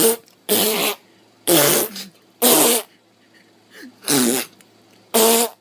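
A frightened cat hissing and spitting in six short, loud bursts about a second apart.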